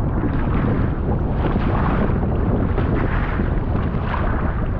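Wind buffeting the microphone, a heavy rumbling gusting noise, over choppy sea, with waves splashing and washing around a fishing kayak's hull in uneven surges.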